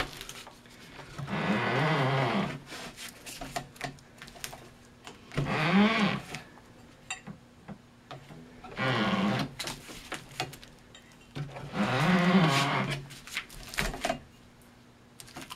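Four drawn-out squeaks, each about a second long and rising then falling in pitch, from spiking a cylinder firework shell on a roller turntable: the spiking twine is pulled taut around the paper shell as the shell is turned on its rollers.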